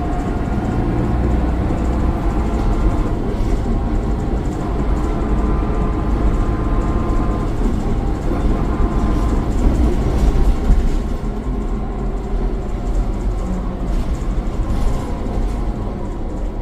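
Mercedes-Benz Citaro O530 bus's OM906 6.4-litre inline-six diesel running under way: a thrashy engine note with a turbo whine that shifts in pitch.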